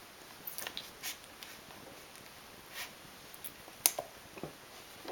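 Eight-day-old Rhodesian Ridgeback puppies suckling at their mother: scattered soft wet smacks and clicks from their mouths, with one sharper click just before four seconds in.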